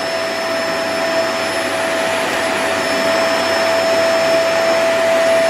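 Canister vacuum cleaner running steadily as it is pushed over carpet: a constant rush of air with a steady whine over it.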